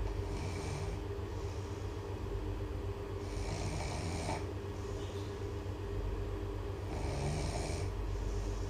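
A person snoring loudly, three snoring breaths about three and a half seconds apart, each with a hissing rush, over a steady low hum.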